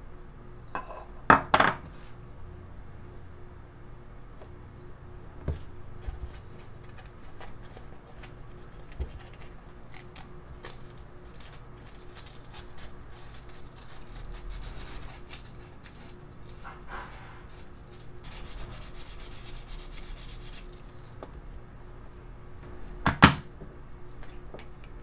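Sandpaper rubbing on a thin basswood stick in hand, in two stretches of a few seconds each past the middle. Two sharp knocks on the wooden workbench, one about a second in and one near the end, are the loudest sounds.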